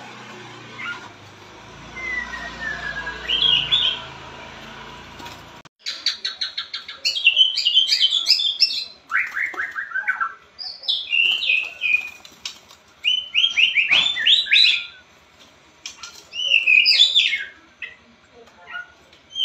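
A pied ('blorok') white-rumped shama singing loud phrases of rapid whistled notes and quick descending runs, with short pauses between phrases. The first few seconds are quieter, with a low hum and a single whistled glide, and the full song starts about six seconds in.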